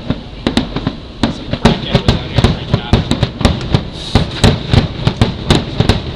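Fireworks going off in rapid succession: a dense run of sharp bangs and cracks, several a second, getting louder and thicker about a second in.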